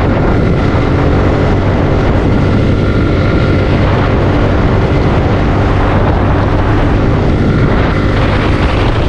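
Suzuki Gixxer 155's single-cylinder four-stroke engine running at a steady cruise with wind rushing over the camera microphone.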